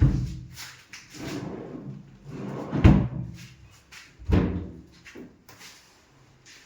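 Wooden wardrobe drawers and doors being slid and shut. Several sliding rubs each end in a thud, the loudest about three seconds in and another a little after four seconds.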